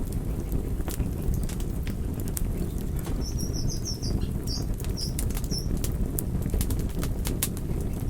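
Wood fire burning in a fireplace: a steady low rush of flames with irregular sharp crackles and pops. A short run of high chirps comes about three to five and a half seconds in.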